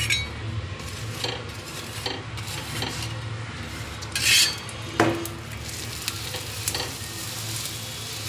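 Sattu-stuffed paratha sizzling in refined oil on a tawa. A metal spatula scrapes and taps on the pan several times: the loudest scrape comes about four seconds in and a sharp tap just after five seconds.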